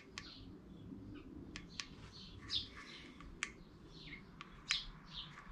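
Small birds chirping, a string of short high notes every half second or so, with a few sharp ticks among them.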